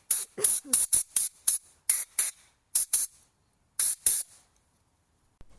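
About a dozen short, sharp bursts of spray hissing from a nozzle, fired in quick irregular succession into a small engine's fuel tank to clean it out, then stopping.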